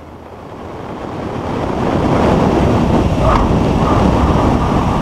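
Rushing wind noise from airflow over a wing-mounted camera on a Piper Warrior landing on the runway. It swells over the first two seconds and then holds steady, and a faint steady tone joins about three seconds in.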